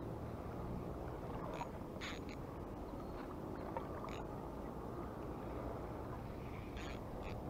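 Steady low rushing noise of wind and water, with a few short, high, buzzing zips from a spinning reel, one around two seconds in and others near four and seven seconds.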